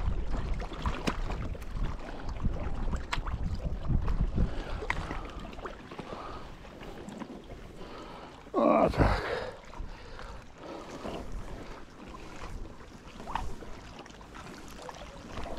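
Magnet-fishing rope being thrown and hauled in by hand, with scattered clicks of handling and wind rumbling on the microphone early on. About halfway through comes a loud, short sound sliding steeply down in pitch.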